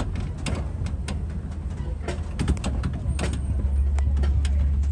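Open-air safari truck driving along a dirt track: a steady low engine rumble that grows stronger about three seconds in, with scattered sharp clicks and knocks from the vehicle rattling.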